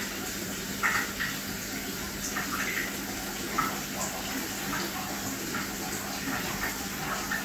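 Aquarium water circulating: a steady watery hiss with small irregular splashes over it, and a low steady hum underneath.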